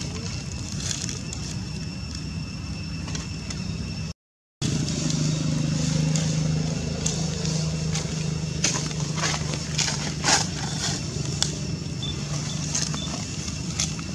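A steady low mechanical hum with scattered crackles and rustles of dry fallen leaves. The sound cuts out completely for a moment about four seconds in.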